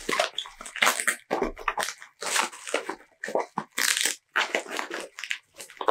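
Packaging wrap around a book being crinkled and pulled at by hand, in irregular bursts of crackling and rustling, as it is opened without scissors.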